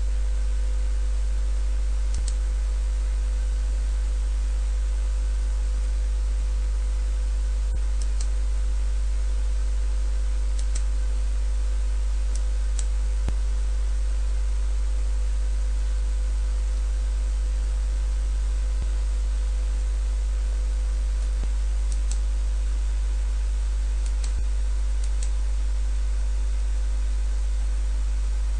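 Steady electrical mains hum at about 50 Hz with its overtones, with faint computer mouse clicks now and then.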